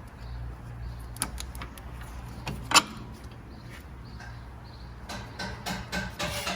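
Scattered metallic clicks and clanks of hand tools and suspension parts being handled, with one sharp clank about three seconds in and a cluster of knocks near the end, over a low steady hum.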